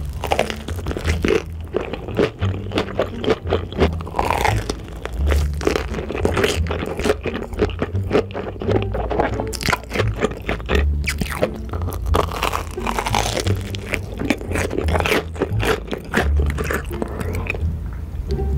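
Close-miked crunching bites and chewing of a fried, crumb-coated corndog, with many sharp crackles throughout, over background music with a pulsing bass line.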